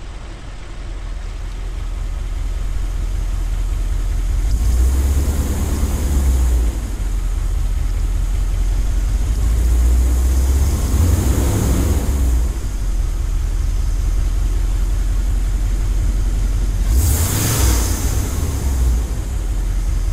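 A 1977 Corvette's L-48 350 V8 running at idle through its dual exhausts, its sound swelling louder three times, about five, ten and seventeen seconds in.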